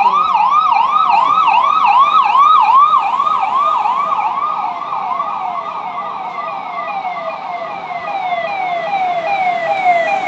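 Electronic police siren on an approaching convoy vehicle. It sweeps up and down in pitch about three times a second, then changes partway through to repeated falling sweeps. It fades a little in the middle and grows louder again near the end.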